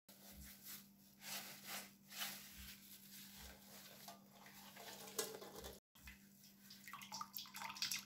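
Boiled pine cone water trickling and dripping through a muslin cloth into a pot, faint, with small irregular splashes.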